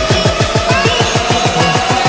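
Electronic background music in a build-up: deep falling kick-drum hits coming faster and faster under a slowly rising synth tone.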